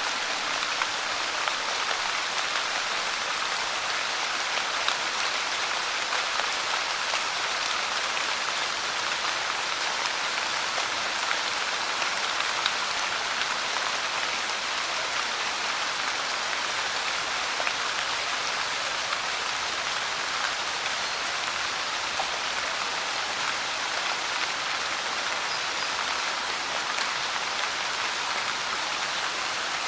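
Light rain falling steadily: an even hiss of many small drops, with an occasional slightly louder drop standing out.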